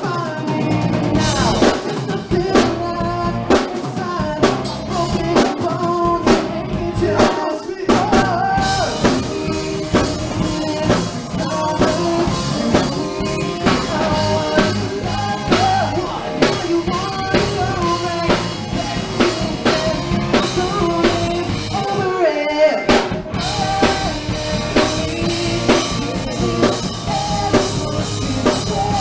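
A rock band playing live: a man singing over electric guitars, bass guitar and a drum kit. The bass and drums stop for about a second roughly three quarters of the way through, then the full band comes back in.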